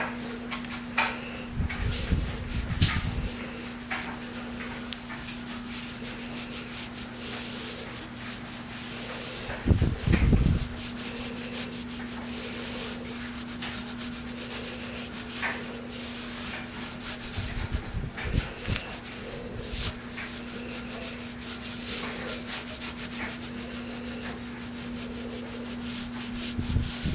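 Terry towel rubbing and scrubbing over freshly grouted glass mosaic tiles, quick rough strokes wiping off the excess grout. A few dull thumps from the piece being handled, over a low steady hum.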